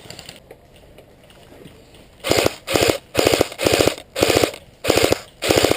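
Airsoft electric gun firing on full auto in seven short bursts, about two a second, starting about two seconds in; each burst is a fast rattle of shots.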